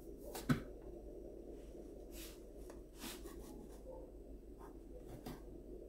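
Flour being sifted through a wooden-rimmed hand sieve: faint rubbing and a few soft taps, with a light knock about half a second in.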